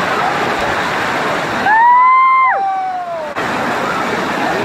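Water rushing and splashing over the rock steps of a waterfall cascade. About a second and a half in, the water sound cuts out and an added whistle-like sound effect plays for about a second and a half: a clear tone that rises briefly, holds, then slides down in pitch, before the water sound returns.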